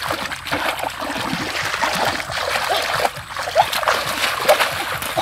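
Hands splashing and churning shallow muddy water and mud, groping for eels and fish, a run of irregular wet splashes and sloshes.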